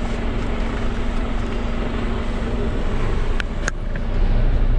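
Expedition truck's diesel engine running, heard from inside the cab, as the truck is put in gear and pulls away, growing louder just after four seconds in. Two sharp clicks about three and a half seconds in.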